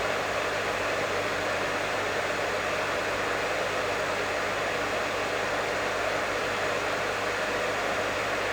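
Professional hair dryer running steadily: an even rush of blown air with a faint low motor hum underneath.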